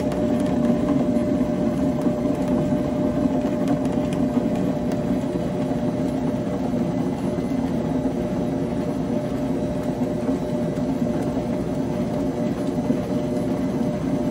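Commercial stand mixer running steadily, its beater working a thick filling of crumbled cake, dates and walnuts in the steel bowl: an even motor hum with a thin constant tone over it.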